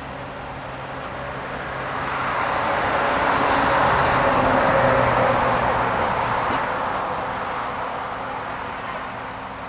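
A motor vehicle passing by: a steady rushing noise that swells over a few seconds, peaks about halfway through and fades away.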